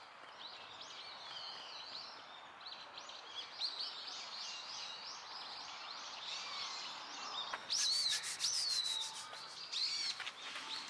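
Many small birds chirping, a steady run of short high calls overlapping one another. About three-quarters of the way through, the birds grow louder and a quick series of sharp clicks joins them.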